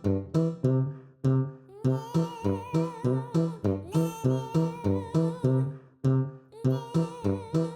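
Background music: plucked guitar notes in a steady pulse, with a sustained wavering melody line coming in about two seconds in.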